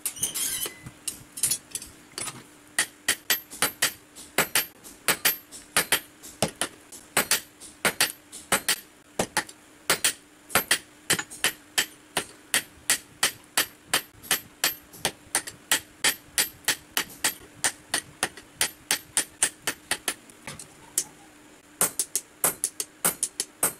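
A blacksmith's hand hammer strikes red-hot steel on an anvil, forging a basula (carpenter's adze) in a steady run of sharp ringing blows, about two to three a second. A brief rattle at the start comes as the glowing blank is drawn from the coal fire with tongs. Near the end, after a short pause, the blows fall on a handled punch driven into the hot socket.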